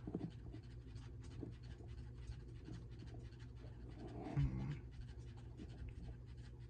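Faint scratching and light clicking from a plastic action figure being handled and posed, over a steady low hum. There is one short, louder low sound about four seconds in.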